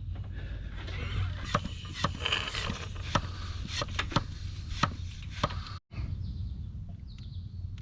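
Irregular clicks and knocks of a wrench and metal parts being handled while a tight oil filter is worked off a Kawasaki FX691V mower engine. The clicks are thickest in the middle and stop about six seconds in.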